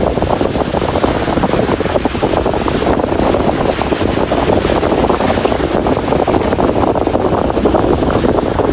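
Strong wind from a waterspout buffeting the microphone: a steady, loud rush.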